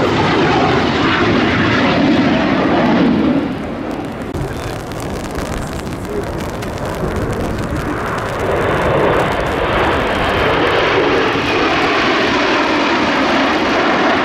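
Aermacchi MB-339 jet aircraft flying a display, a steady jet roar that eases off about three seconds in and builds up again from about eight seconds.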